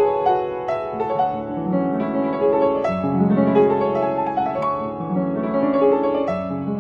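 Piano music: several notes sounding together, with new notes struck every fraction of a second.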